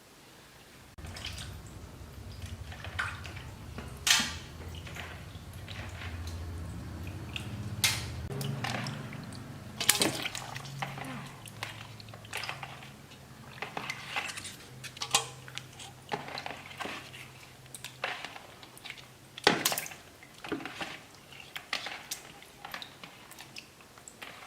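Water splashing and dripping in a basin as loaches are handled and washed, with irregular sharp splashes and clatters. A low hum runs under the first several seconds.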